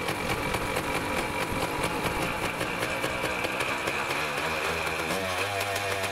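KTM enduro motorcycle engine idling, settling into a steadier beat about five seconds in.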